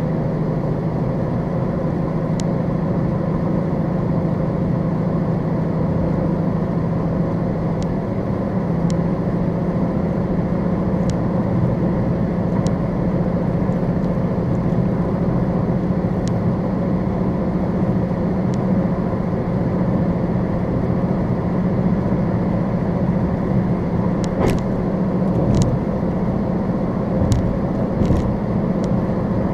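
Steady road and engine noise inside a car cruising on a freeway at about 55 to 63 mph: tyre and wind rush with a low hum that steps up in pitch about eight seconds in. A few faint ticks come near the end.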